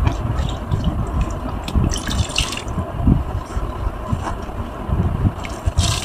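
A flat foam sponge, caked with scouring and laundry powder over thick bleach and handwash soap, is lifted and squeezed by gloved hands. It gives soft wet squishes and thuds, with crackling bursts about two seconds in and again near the end.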